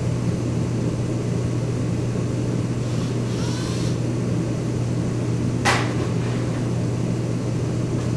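Steady low mechanical hum, with a short scratchy rustle about three seconds in and a single sharp click just before six seconds in.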